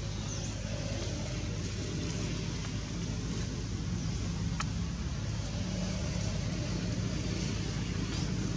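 Steady low rumble of motor vehicle engines, with one sharp click about four and a half seconds in.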